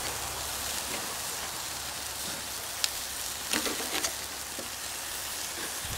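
Chicken thighs sizzling steadily on the hot grate over charcoal, their fat spitting, with a few light clicks and knocks around the middle.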